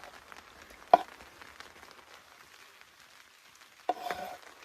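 Knife chopping wild mushrooms on a cutting board: single sharp chops about a second in and again at the very end, with a short scraping sound just before the last one. Rain patters faintly in between.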